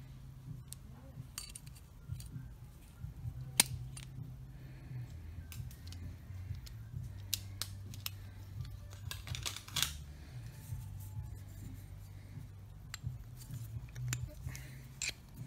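Scattered light metallic clicks and taps of steel horseshoe pieces being handled and fitted together, over a low steady hum.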